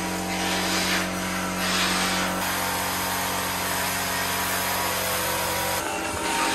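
A machine running with a steady hum of several held tones; its deepest part drops away about two and a half seconds in, and the sound changes sharply near the end.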